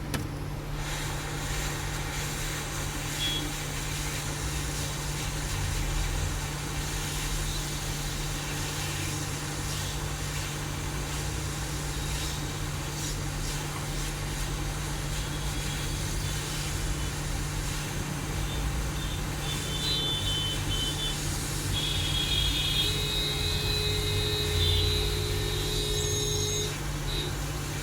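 Hot air rework station blowing steadily while heating a phone's charging jack to desolder it, with a constant low hum underneath.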